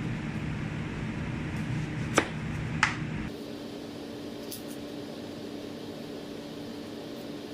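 Steady machine hum with two sharp knocks about two and three seconds in; a little after three seconds the hum changes abruptly to a quieter, thinner drone.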